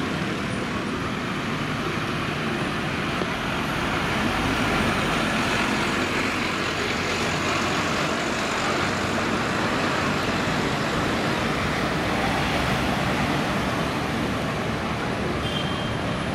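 Busy city-centre road traffic: buses and cars running and passing in a steady wash of engine and tyre noise.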